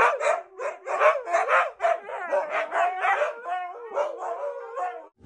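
Siberian huskies howling and yowling in a string of short, wavering calls, several a second, that cut off abruptly near the end.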